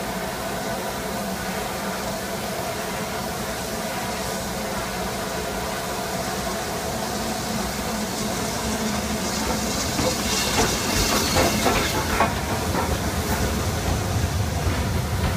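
BR Standard Class 9F 2-10-0 steam locomotive 92212 trundling slowly past with steam hissing; about ten seconds in, as it draws level, a quick run of clicks and knocks from its wheels and motion, followed by the low rumble of its coaches rolling by.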